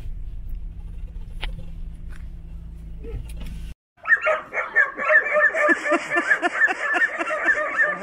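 A low, steady car-cabin rumble from the engine, cut off abruptly just before halfway. Then several dogs bark and yip rapidly, their calls overlapping without pause.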